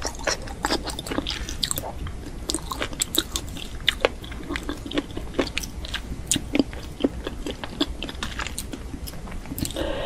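A person chewing and biting a spicy enoki mushroom dish close to the microphone: many quick, irregular, crunchy mouth clicks.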